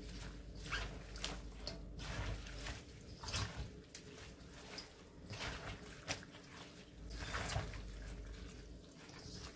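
Gloved hands tossing and squeezing young napa cabbage kimchi, with chives and red pepper seasoning, in a stainless steel bowl: squishing and rustling at irregular intervals.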